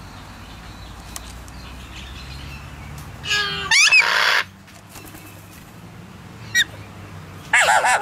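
Alexandrine parakeets calling: two loud, harsh squawks, one about three seconds in and one near the end, with a short call between them.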